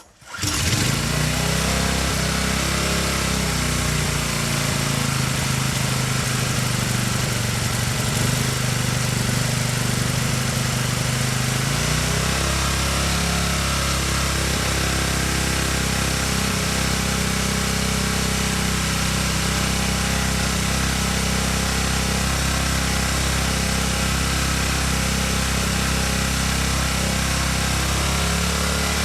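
Briggs & Stratton engine on a Kärcher pressure washer starting on full choke about half a second in and running, its note wavering at first, changing about twelve seconds in, then holding steadier. It wants the choke to keep running, which the owner puts down to maybe a fuel issue.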